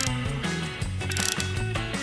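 Background music with moving bass and melody notes and a short, bright rattling hit about every second and a half.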